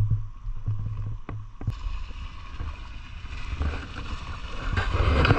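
Off-road 4x4's engine working through deep swampy mud, with churning and sloshing noise that grows louder near the end.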